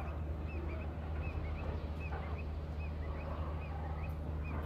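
Small birds chirping, short high calls repeating a few times a second, over a steady low hum.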